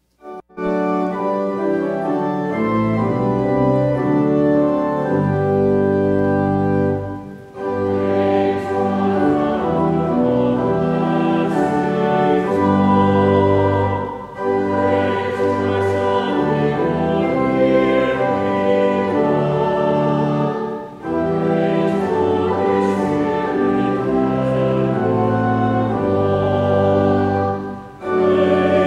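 Church organ accompanying a congregation singing a short hymn of praise, in four sustained phrases of about seven seconds each with a brief break between them.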